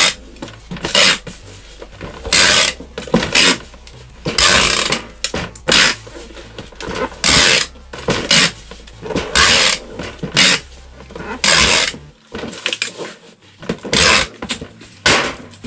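Packing tape being pulled off a handheld tape gun and run across a cardboard shipping box, in a string of short, loud strips about one a second.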